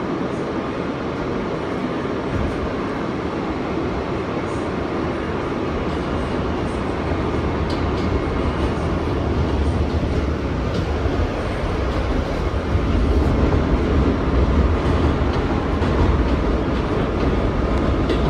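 Interior of an R160A subway car in motion: steady rumble of the wheels and running gear on the track, growing louder and deeper in the second half.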